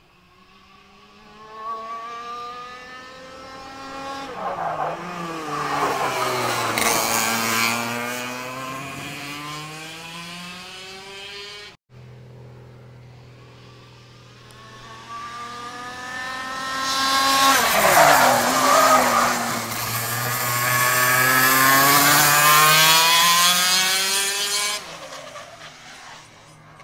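Racing kart engine revving hard as the kart passes twice. Each time the pitch climbs as it accelerates and drops as it goes by, and the first pass cuts off suddenly about halfway through.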